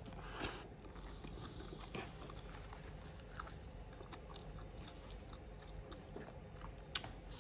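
A person chewing and biting food up close, with small wet mouth clicks and occasional crisp crunches, and a sharp click about seven seconds in.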